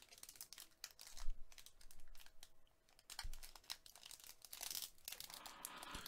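Foil wrapper of an Upper Deck Allure hockey card pack being picked at and torn open by hand: faint crinkling with small scattered clicks, and a longer crinkle near the end. The wrapper is tightly sealed and slow to open.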